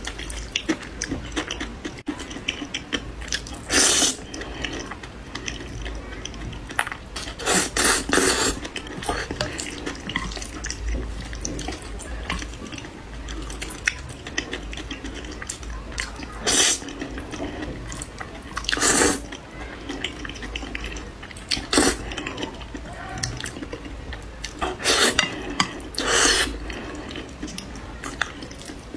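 Close-miked eating of saucy noodles: about seven loud slurps, spaced a few seconds apart, with wet chewing and small clicks of chopsticks on the plate between them.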